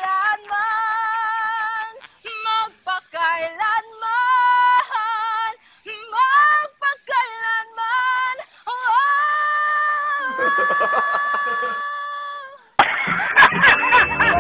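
A high voice singing a slow Tagalog ballad line unaccompanied, with vibrato and long held notes between short breaths. About a second before the end it cuts suddenly to loud background music.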